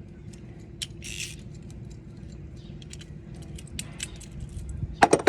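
Scattered small metallic clicks and clinks of a hand tool loosening the bolt of an old, rusted battery terminal clamp, with a short scrape about a second in and a quick cluster of sharper, louder clicks near the end.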